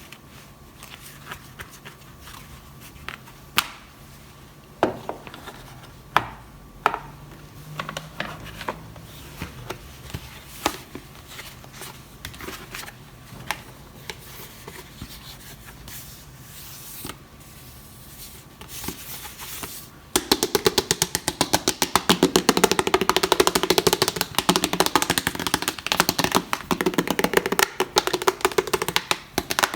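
Plastic toys and packaging being handled during an unboxing, with scattered taps and clicks. About two-thirds of the way through, a louder, dense run of rapid clicking starts and keeps going.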